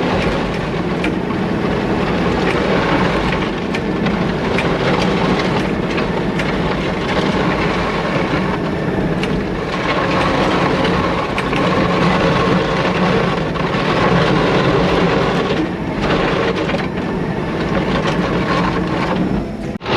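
Heavy equipment engine running steadily, with frequent metallic clanks and rattles from the machine and its attachment.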